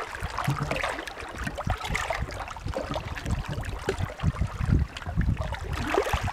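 Small sea waves lapping and splashing at the shore in an uneven wash with low thuds, one wash swelling near the end.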